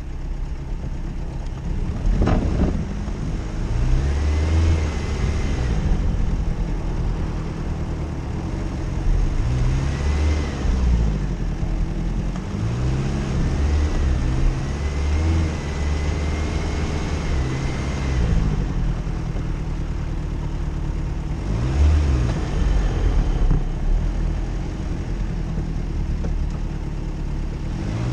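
A Jeep Cherokee's engine is revved up and down again and again while driving off-road, with a high whine that rises and falls with the revs. There is a single sharp knock about two seconds in.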